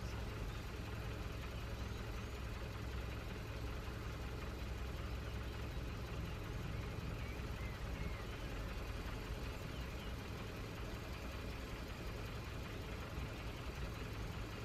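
A vehicle engine idling steadily, low and even.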